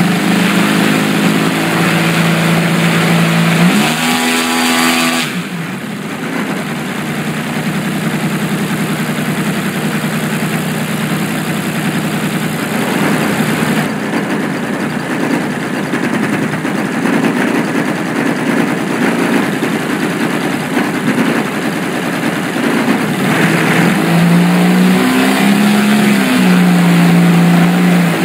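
Desert Aircraft DA-100 100cc twin-cylinder two-stroke model-aircraft engine on its first test run after repair. It idles, is run up to high throttle about four seconds in and held there, then is throttled back to idle near the end and starts to rev again.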